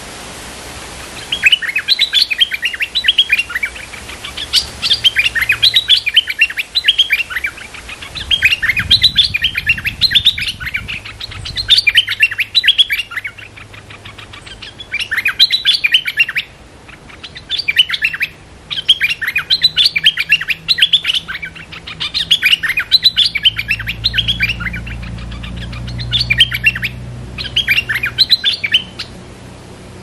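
Stripe-throated bulbul singing: quick phrases of bubbly, chattering notes, each a second or two long, repeated with short pauses. A low rumble comes in near the end.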